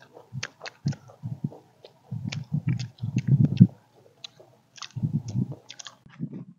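Close-up chewing and crunching of fried food, with irregular small crackly clicks and a few louder bouts of chewing, picked up by a clip-on microphone.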